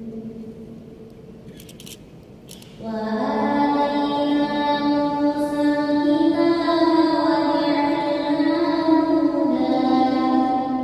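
A young woman reciting the Quran in Arabic in melodic murottal style, amplified through a microphone. After a pause of nearly three seconds she sings one long held phrase whose pitch climbs in steps and falls back near the end.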